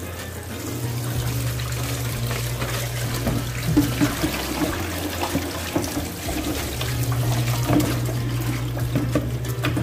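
Tap water running onto meat pieces in a stainless steel mesh colander and splashing into a sink and a plastic basin, with a few clunks as the colander and basin are handled.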